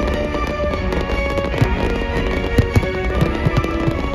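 Firework display: shells bursting with many irregular bangs and crackles over loud show music.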